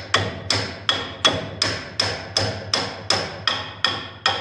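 Steady hammer blows on steel, evenly at nearly three a second, each with a short metallic ring: a large bearing being driven into its housing.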